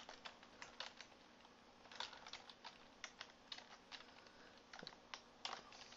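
Faint typing on a computer keyboard, a string of irregular keystrokes.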